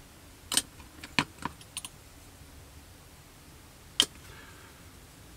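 A few light clicks and taps of small tools and plastic model parts being handled on a work surface, clustered in the first two seconds, then one sharper click about four seconds in.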